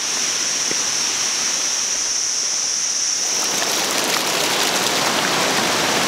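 Water rushing and splashing over limestone cascades: a steady, even wash. A steady high-pitched hum sits over it in the first half, and the water grows fuller and a little louder about three seconds in.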